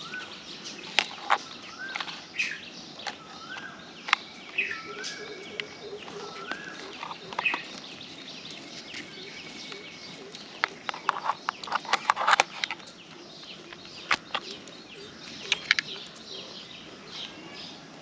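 Sharp clicks and rattles from a DJI drone remote controller and its cable being handled, densest about eleven to twelve seconds in. Behind them, birds call over and over with short chirps.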